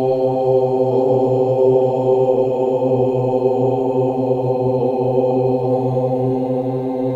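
Meditation-music chanted drone, a mantra held steadily on one low pitch without a break, easing slightly near the end.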